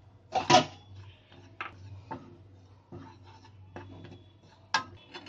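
A spoon scraping and knocking against a metal pan while dry gram flour is stirred as it roasts. It comes in separate strokes, the loudest about half a second in, over a faint steady low hum.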